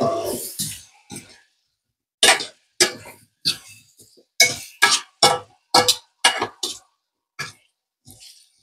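Metal tongs knocking and scraping against a nonstick frying pan while baby potatoes are turned, heard as about a dozen short, separate clinks after a louder clatter at the start.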